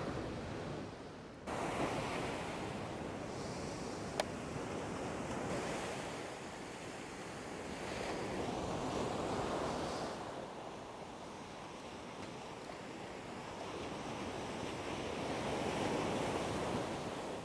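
Ocean surf breaking and washing up the beach, the rush swelling and easing in slow surges as each wave comes in. There is a single sharp click about four seconds in.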